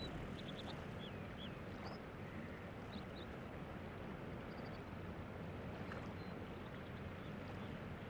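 Rushing mountain stream, a steady even rush of water. A few faint, short, high bird chirps sound in the first three seconds, and a couple more come about six seconds in.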